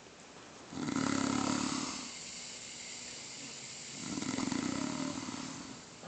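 A man snoring: two long snores about three seconds apart, each lasting about a second and a half.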